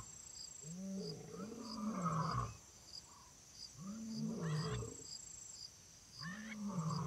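Low animal calls: short moaning growls that rise and then fall in pitch, coming in three bouts of one or two. Faint high ticks repeat about every half second behind them.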